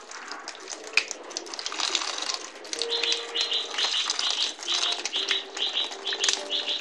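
Water splashing from a falling stream onto a Sony Xperia Z smartphone and the wet tile around it. A tune plays throughout, and about three seconds in a rhythmic high trill starts in it, repeating roughly twice a second.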